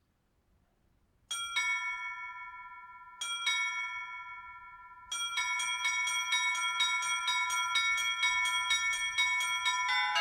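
High-pitched small Russian Orthodox zvon bells struck by an automatic electronic bell-ringer. Two double strikes come a couple of seconds apart and ring out, then from about halfway a fast, even chiming of about four strikes a second follows.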